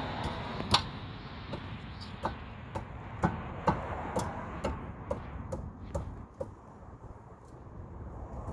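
Irregular light metallic clicks and knocks as a 2015 Infiniti Q40's brake caliper and pads are handled and fitted back over the front rotor. A steady background rush fades about halfway through.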